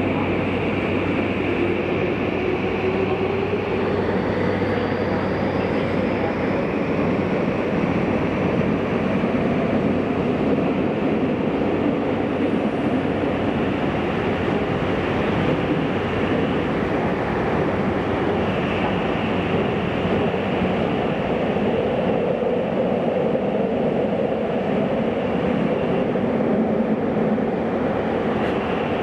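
Tokyu 5000 series electric train running at speed through a subway tunnel, heard from inside the car: a steady rumble of wheels and running noise. A faint rising whine comes through in the first several seconds.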